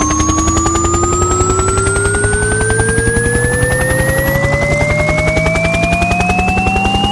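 Speaker run-in (burn-in) test signal: several pure sine tones sweep slowly upward together, layered over a helicopter's rapid rotor chopping. The highest sweep stops about four seconds in. It is played to loosen new drivers' rubber surrounds and suspensions.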